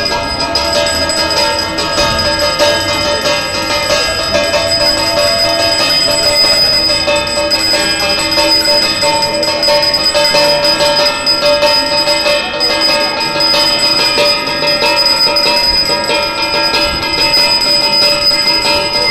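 Temple bells ringing continuously for the evening aarti: a dense, steady, metallic ringing with no breaks.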